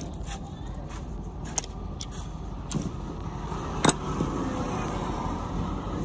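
A swab rubbing and scrubbing over a mobile phone's circuit board: a soft rasping that thickens from about four seconds in. There are a few sharp clicks of handling before it, over a steady low background rumble.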